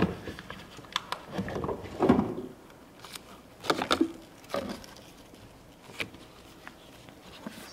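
Light clicks, knocks and short rustles of a plastic funnel being handled and set into the filler neck of a brake fluid reservoir. The louder rustles come about two and four seconds in.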